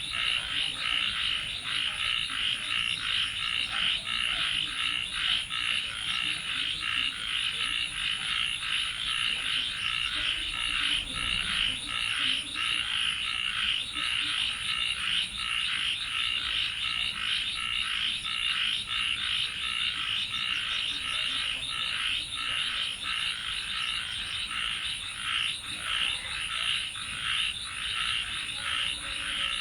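A dense chorus of frogs calling, an unbroken mass of rapid overlapping croaks, with a steady thin high-pitched trill running above it.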